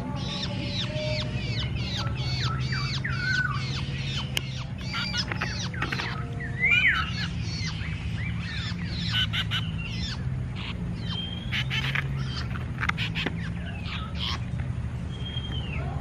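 Several birds calling at once: a busy run of short squawks and chirps with quick up-and-down notes, over a steady low hum.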